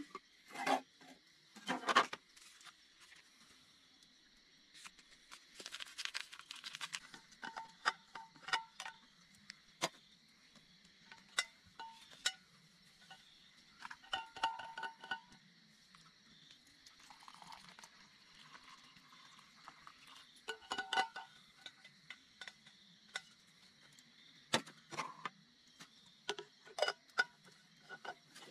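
Scattered clinks and knocks of small hard objects being handled, a few with a short ringing tone, over a faint steady high hiss.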